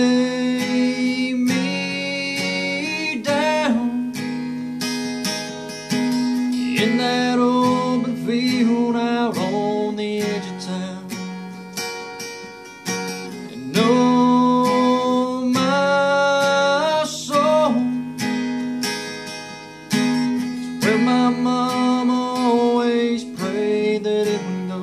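Acoustic guitar strummed steadily through a slow country ballad passage, with a held melody line over it in four long phrases that bend at their ends.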